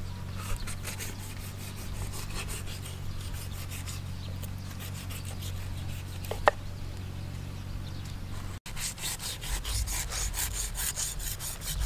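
A knife scraping the rough skin of a small shark in rapid, rasping strokes, about four a second. A single short, sharp chirp sounds about two thirds of the way through, and a steady low hum runs under the first part.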